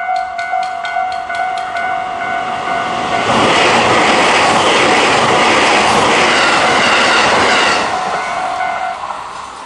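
Japanese level-crossing warning bell ringing its standard repeating electronic ding while a train passes, a loud rush of wheels on rail for about five seconds that drowns the bell. The bell rings on briefly after the train and stops near the end.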